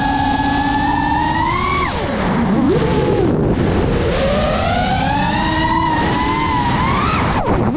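FPV racing quadcopter's brushless motors whining with propeller wash. The pitch holds steady, climbs and then drops sharply about two seconds in, wavers low, climbs again and drops once more near the end.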